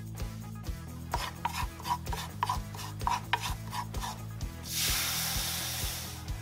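A wooden spoon scraping and stirring a butter-and-flour roux in a nonstick frying pan, in a run of quick strokes. About four and a half seconds in, a loud hiss takes over as cold milk is poured into the hot roux. Soft background music with a steady beat plays underneath.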